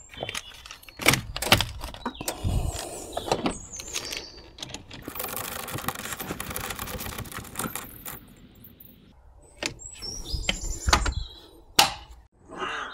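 Ratchet wrench clicking in short runs as the battery's terminal clamps and hold-down are tightened, with metal clinks and knocks of the tool against the battery.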